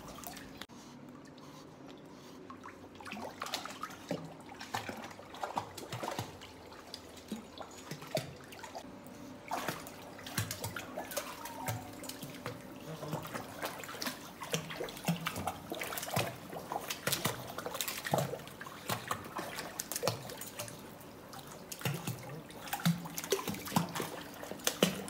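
Water splashing and dripping in irregular bursts as a small dog paddles in a hydrotherapy pool, with a steady low hum underneath. The splashing is sparse for the first few seconds and busier from about ten seconds in.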